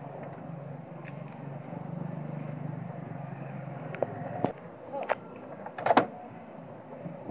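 Low, steady hum of a running motor vehicle that stops about four seconds in. A few sharp knocks and clicks follow, the loudest about six seconds in.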